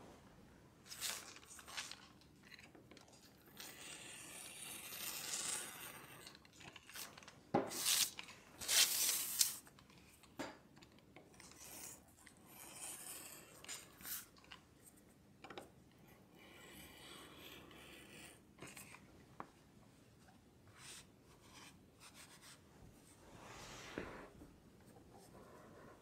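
Irregular bursts of scratchy rubbing and rasping, the loudest about eight to ten seconds in: a craft knife cutting a sheet of printed labels on a cutting mat, along with the paper and a cotton T-shirt being handled.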